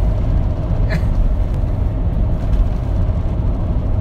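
Steady road and engine noise heard inside a car's cabin at highway speed: an even low rumble with a faint steady hum above it.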